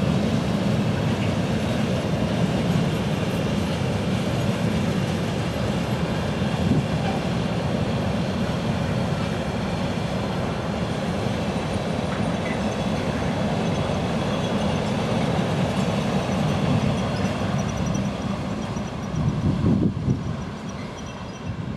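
Container wagons of a freight train rolling past on the rails: a steady rumble of wheels on track, fading near the end as the tail of the train draws away.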